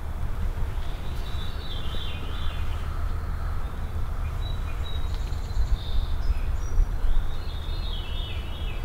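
Birds singing, with a falling, stepped song about a second in and again near the end and short chirps between. Under them is a steady low rumble of wind on the microphone.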